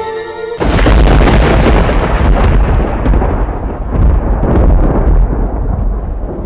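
Music breaks off about half a second in, and a loud, deep rumbling sound effect like thunder takes over, swelling and easing in waves.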